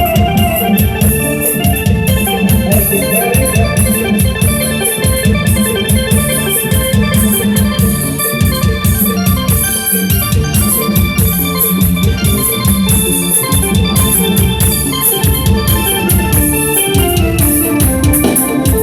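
Loud Thai procession music blaring from a procession truck's sound system: an electronic keyboard melody over a fast, steady drum beat.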